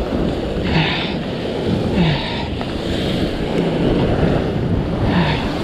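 Ocean swell washing and breaking against the rock ledge below, with wind buffeting the microphone. A few short, louder sounds stand out over the surf.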